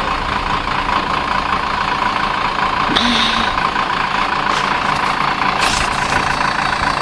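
Heavy machine's diesel engine running steadily, with a brief sharper noise about three seconds in and again near six seconds.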